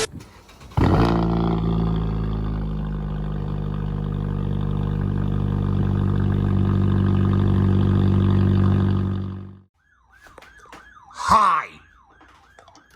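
A loud, steady buzzing alarm tone that holds for about nine seconds and then fades out, followed by a quieter siren tone warbling up and down about three times a second, with a brief loud shout over it near the end.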